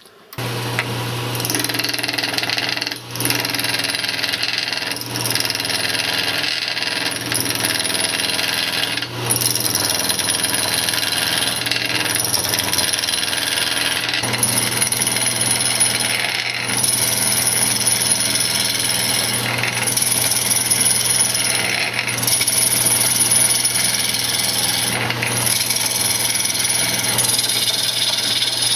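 Wood lathe running with a steady motor hum while a turning tool cuts a spinning cocobolo blank to true it up, giving a rough cutting hiss broken by short pauses every few seconds as the tool comes off the wood.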